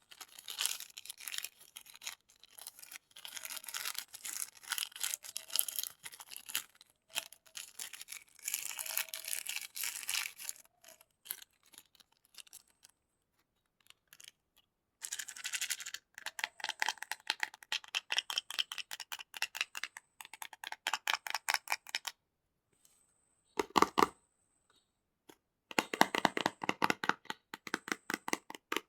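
Crinkling and tearing of plastic candy wrappers, handled up close in quick runs of sharp crackles with a few short pauses. A single heavier knock comes about two thirds of the way through.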